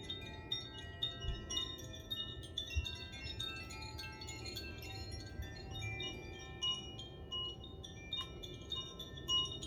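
Chimes played during a sound meditation: many small, high metallic tones struck one after another, ringing on and overlapping, with a few soft low thuds beneath.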